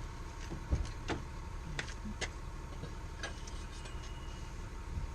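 Hand tools being handled during work on a car's rear wheel: a few irregular light clicks and knocks, over a steady low background.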